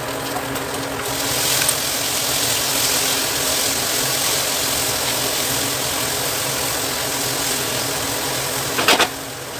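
Vegetables frying in a hot pan, sizzling over a steady low hum; the sizzle grows louder about a second in. A few sharp clanks come near the end.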